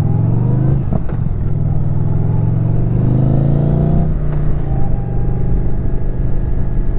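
Indian Challenger motorcycle's V-twin engine accelerating through the gears. Revs climb and fall at upshifts about a second in and again about four seconds in, then it runs steadily at cruising speed.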